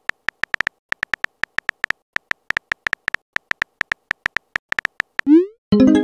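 Rapid phone-keyboard tap sounds, about eight clicks a second, as a text message is typed out, then a short rising swoop as the message is sent. A louder tone-like sound follows near the end.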